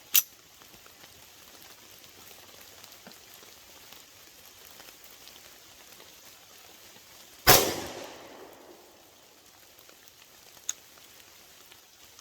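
A single shot from a homemade prototype pistol about seven and a half seconds in, a sharp report with a ringing tail of about a second; the pistol extracted and ejected the case on this shot. A steady hiss of rain lies underneath, with a sharp click at the very start and a faint tick near the end.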